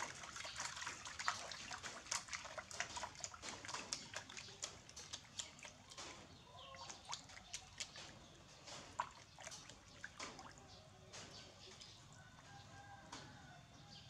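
Water splashing and dripping in a plastic basin as a baby monkey moves about in it: many quick small splashes that thin out after about ten seconds.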